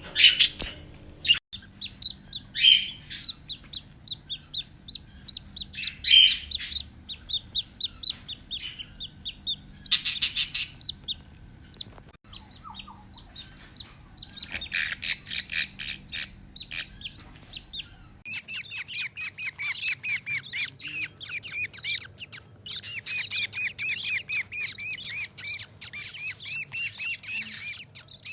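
Pet budgerigars chattering and warbling in fast runs of short chirps, with louder squawky bursts near the start and about ten seconds in.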